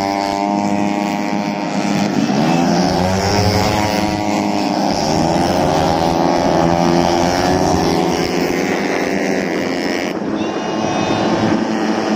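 Racing underbone motorcycles running at high revs, their engine note climbing in pitch and dropping back several times as they accelerate and shift up, with more than one engine heard at once.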